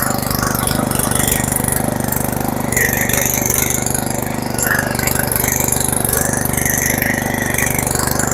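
A motor running steadily at a constant pitch.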